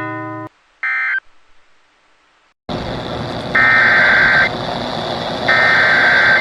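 EAS data bursts from a NOAA Weather Radio broadcast: a short end-of-message burst about a second in closes the previous warning. After a silence, a hissing radio signal comes up and two longer SAME header bursts, the harsh digital screech that opens a new alert, sound in turn.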